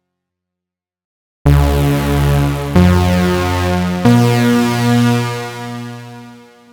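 Vectra software synthesizer playing a thick, detuned unison-stack patch: after a moment of silence, three heavy, bass-rich notes sound one after another, each with many closely spaced voices, the last fading away.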